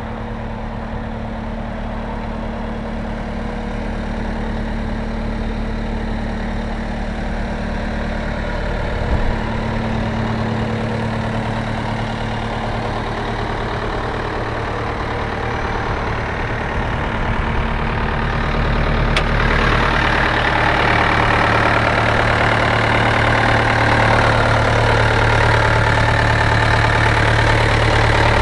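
Cat 236B3 skid steer's diesel engine idling steadily, gradually getting louder. About two-thirds of the way through it becomes louder, with more high-pitched noise over the low engine hum.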